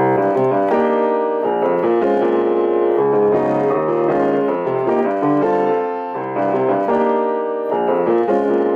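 Piano being played, chords and sustained notes, picked up by a compact camera's built-in microphone resting on the piano, with a buzz from the camera rattling against the piano's surface.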